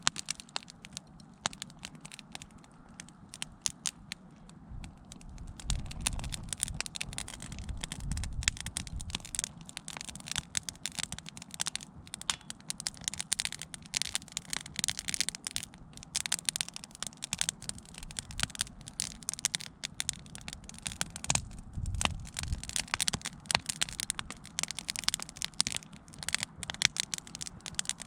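Wood fire crackling, with dense, irregular sharp pops and snaps throughout. A low rumble swells twice.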